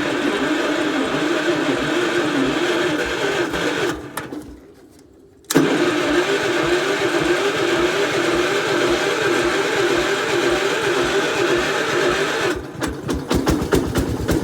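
Gravely 812 tractor's engine running on a cold start with an unsteady, wavering speed. It dies about four seconds in and restarts with a sudden catch a second and a half later. Near the end it drops to slower, uneven firing and nearly stalls, which the owner puts down to the choke sticking on.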